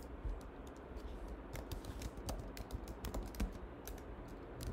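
Typing on a computer keyboard: an uneven run of keystroke clicks.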